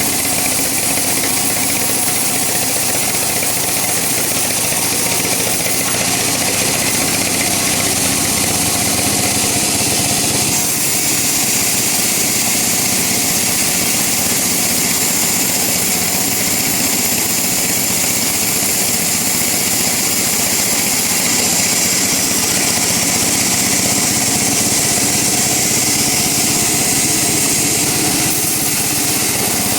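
Sawmill woodworking machinery running steadily while teak is worked into flooring: a constant motor drone under a loud, hissing cutting noise. The high hiss grows stronger in the second half and eases off near the end.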